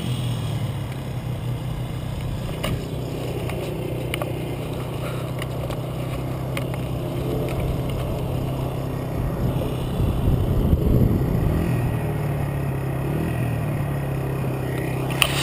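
Dirt bike engine idling steadily, its pitch lifting slightly a few times near the end, with a few sharp knocks.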